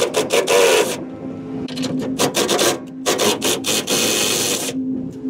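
Hand ratchet wrench working the old receiver hitch's frame bolts, in three rasping bursts of a second or more each.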